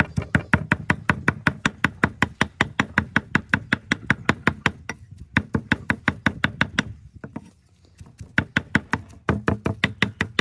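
Heavy cleaver mincing meat with shallots and herbs on a round wooden chopping block: rapid, even knocks about five a second, with a short break about seven seconds in.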